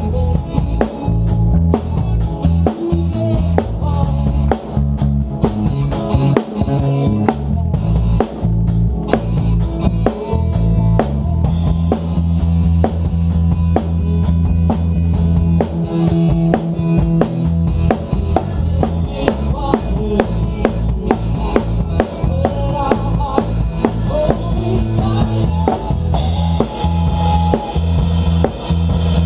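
Live worship band playing, heard from the drummer's seat: a drum kit with kick drum, snare and rimshots up front, over sustained bass notes and other instruments.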